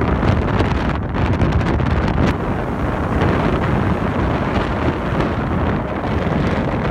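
Strong wind buffeting the microphone, a loud, steady low rumble.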